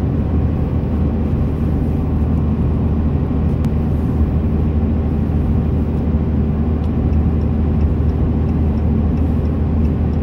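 Steady low road and engine rumble inside a car's cabin while driving on a highway.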